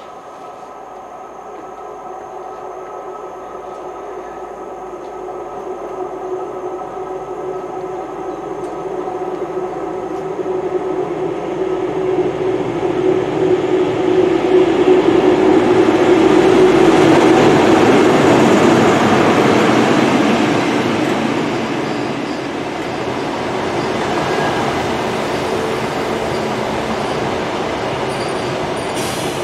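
InterCity 125 high-speed train (Class 43 diesel power car leading green coaches) approaching and running past a station platform. Its engine tone and rail noise build steadily to the loudest point as the power car goes by, about two-thirds of the way through, then ease to a steadier rush and rumble as the coaches pass.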